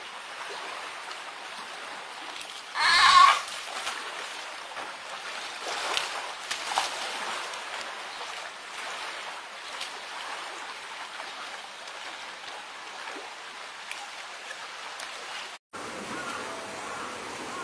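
A sea lion pup gives one loud, short call about three seconds in, over a steady background of running water.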